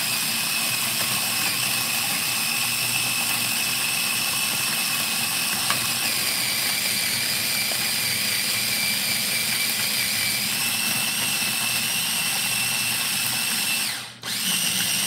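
Cuisinart mini food chopper running steadily, pureeing jerk marinade of garlic, onion and oil. Its whine steps up in pitch twice, about six and ten seconds in, and the motor stops briefly near the end, then starts again.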